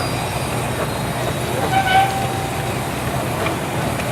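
Half-scale Case steam traction engine running a sawmill: a steady mechanical din with a low hum, and a brief clear tone about two seconds in.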